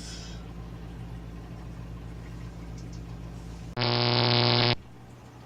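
Steady low electrical hum, then a loud, pitched electronic buzz that cuts in abruptly about three-quarters of the way through, lasts about a second and cuts off just as suddenly.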